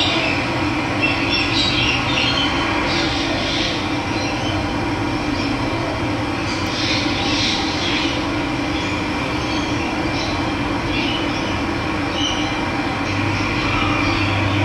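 Steady rush of running water with birds chirping over it in short calls every second or two.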